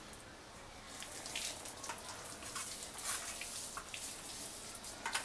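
Hands rubbing salt-and-garlic paste over a raw boneless pork leg in a roasting pan: soft, wet smearing with a few light knocks.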